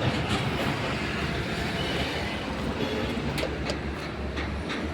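Steady low rumble of heavy road traffic, with a few light clicks in the second half.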